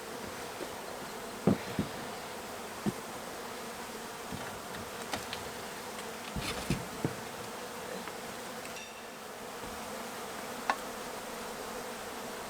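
A large, disturbed honey bee colony buzzing in a steady, dense hum, with a few scattered knocks and clicks as the barn wall is pulled apart.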